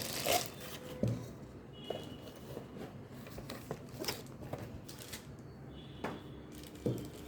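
Plastic blender cups and their packaging being handled: soft rustling with a few light knocks and taps.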